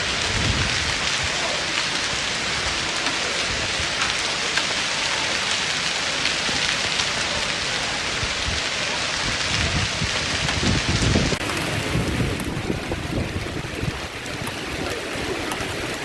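Heavy rain pouring down as a steady hiss. About eleven seconds in it cuts abruptly to a different, quieter take of the rain.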